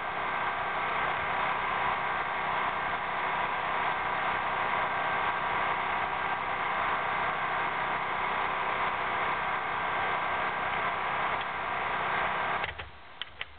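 Power facer on an HDPE pipe butt-fusion machine running steadily with a whine as it trims the clamped pipe ends flat for fusing. It cuts off suddenly near the end, followed by a few sharp clicks.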